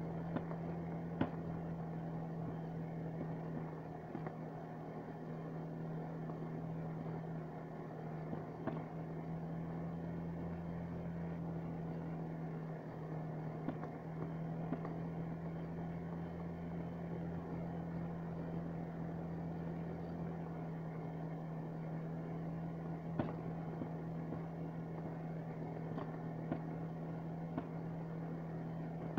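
Snowmobile engine running at a steady cruising speed, with a constant drone and scattered light ticks and knocks from the ride over packed snow.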